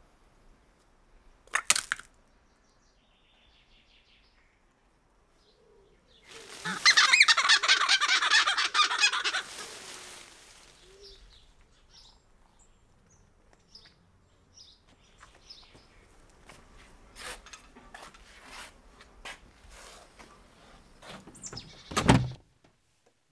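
A chicken cackling loudly in a rapid run for about four seconds, then scattered clicks and knocks, and a heavy thump near the end.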